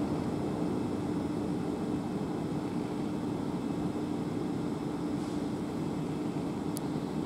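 Class 450 Desiro electric multiple unit standing at the platform, its onboard equipment giving a steady hum with one low drone. A brief click comes near the end.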